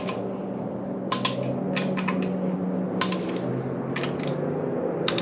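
Click-type torque wrench clicking as the bolts of a 1JZ-GTE bottom end are rechecked to torque. There are several sharp clicks about a second apart, some in quick pairs, over a steady low hum.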